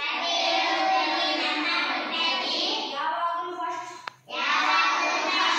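A boy singing a song unaccompanied, reading it from a sheet in his hands. His voice stops briefly about four seconds in, with a small click, then carries on.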